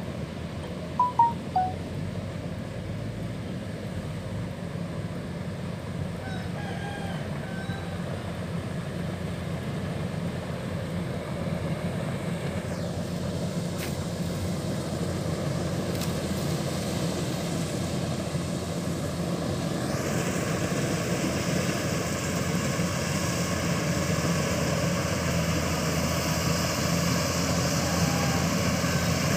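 Kubota DC-105X rice combine harvesters working, a steady engine-and-machinery drone that grows gradually louder as one machine comes closer. A brief sharp sound comes about a second in.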